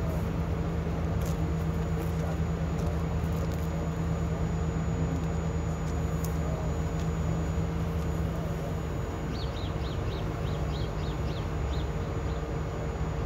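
Steady drone of fire apparatus diesel engines running, a constant low hum with a rumble beneath it. About two-thirds of the way in, a quick run of about a dozen short high chirps sounds over it.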